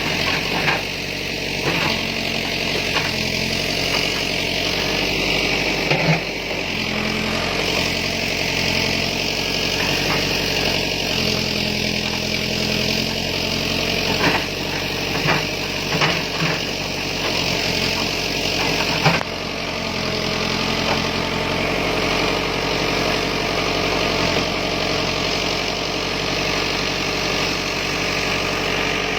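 Backhoe's diesel engine running steadily, with a few sharp knocks scattered through it, one louder than the rest about two-thirds of the way in.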